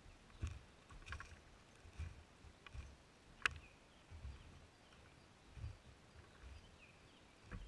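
Footsteps on a wet forest floor: faint, uneven low thuds about once a second, with a few sharp twig-like snaps, the loudest about three and a half seconds in.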